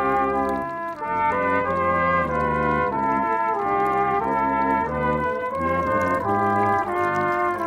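A brass quartet of tuba, euphonium and two smaller high brass horns playing a tune in harmony. Held notes change about every half second over a tuba bass line.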